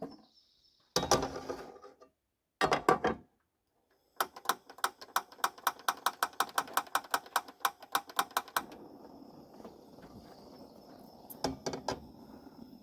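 Rapid, even clicking, about five clicks a second for some four seconds, then a steady low hiss, typical of a propane camp stove's spark igniter clicking until the burner catches and runs.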